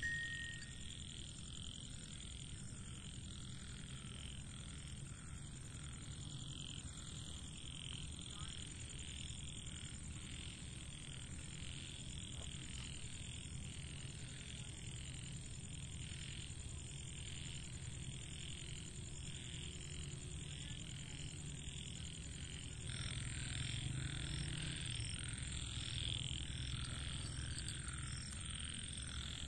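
A chorus of frogs calling, many overlapping croaks repeating without a break and growing louder near the end, with a steady high-pitched whine above it.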